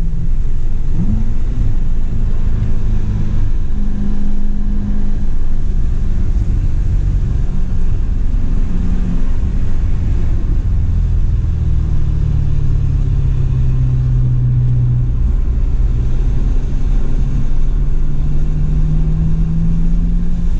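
Inside the cabin, a C7 Corvette Grand Sport's 6.2-litre V8 pulls along a wet track. The engine note rises and falls with the throttle, dipping lower about two-thirds of the way through and climbing again near the end, over a steady hiss of road and tyre noise.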